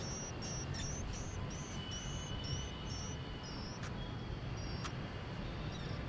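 White-eye and its nestlings at the nest: short, high chirps repeated about two to three times a second, thinning out to a few single chirps after about three seconds. Two sharp clicks come about a second apart near the middle, over a low rumble.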